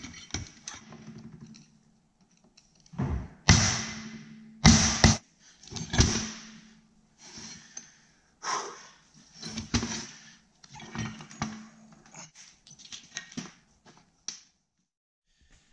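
Metal engine parts, a snowmobile two-stroke's crankshaft and crankcase pieces, clanking and knocking against each other and a steel tray as they are handled. The knocks are irregular, the loudest a few seconds in.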